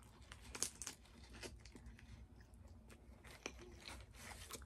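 Faint crunching bites and chewing of a crispy fried chicken sandwich, heard as scattered irregular crackles, with crinkling of its foil wrapper as it is held to the mouth.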